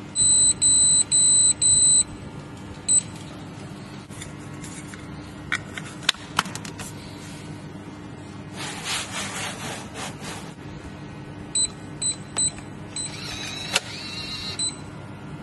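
Electronic smart deadbolt lock beeping: a quick run of four high beeps about a second long, the signal that the reset button has been held long enough to restore factory settings, followed by a single beep. Later come a few clicks, and near the end three short keypad beeps as the code 123 is entered, then further beeps.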